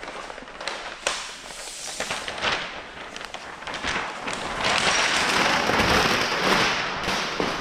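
Crackly rustling and rubbing of plastic paint protection film being handled and pressed down onto a hood. There are scattered small clicks, then a louder stretch of rubbing about halfway through that lasts a couple of seconds.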